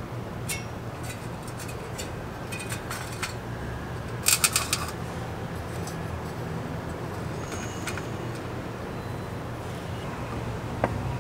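Metal mosquito-coil holder being handled: light clicks and taps as a green mosquito coil is laid in its tin tray, a loud burst of metallic clinks about four seconds in, and a single click near the end as the perforated brass lid is seated. A steady low hum runs underneath.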